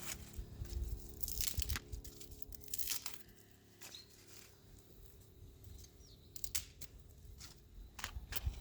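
Dry kindling being handled: rustling and crinkling with sharp snaps, busiest in the first three seconds, then a few scattered clicks.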